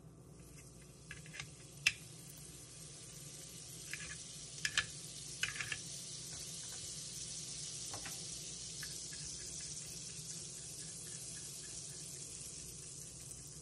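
Butter sizzling on the hot plate of a mini waffle maker: a steady hiss that grows fuller a few seconds in. A few sharp clicks and scrapes of a knife on the plate come in the first half.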